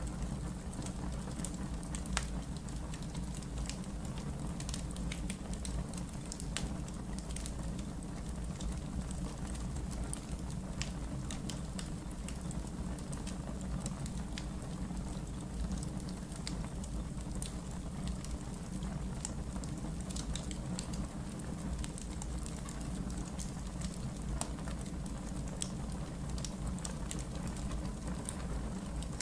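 Wood fire burning in a fireplace: a steady low rumble of flames with frequent sharp, irregular crackles and pops from the logs.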